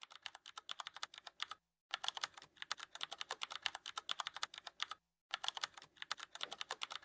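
Cloth wiping over hard desk or office items in quick, short, clicky strokes, about eight to ten a second. The strokes come in three runs, with two brief stops.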